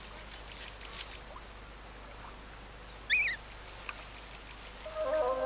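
Marsh ambience: a steady high insect trill over a faint hiss, with one short wavering chirp about three seconds in. Soft music starts near the end.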